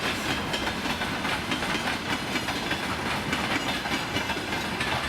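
Freight train wagons rolling past, their wheels clattering steadily over the rail joints with a continuous rolling noise.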